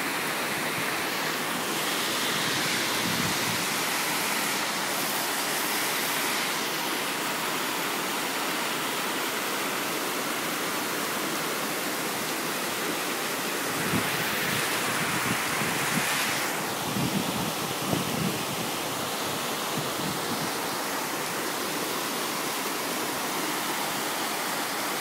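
Flash-flood water rushing steadily, swelling a little louder twice.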